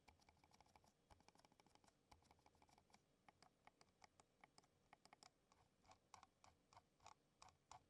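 Very faint, dull clicks of a Cherry DW2300 silent mouse's buttons pressed at normal force: a quick run of clicks at first, then single clicks two or three a second. The buttons are damped, so the clicks barely register.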